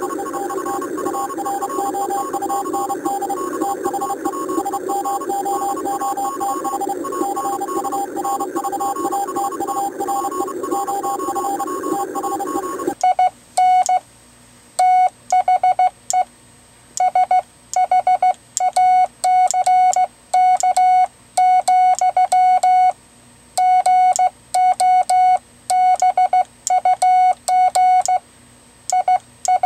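A steady hiss with a couple of constant tones, then, from about 13 s in, a Morse code tone keyed by hand on a semiautomatic bug key: one pitch switching on and off in dots and dashes at a steady sending speed.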